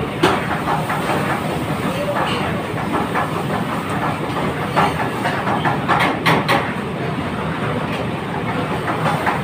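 Commercial kitchen din: a steady rushing noise with scattered clatters and knocks of utensils, a few bunched together past the middle.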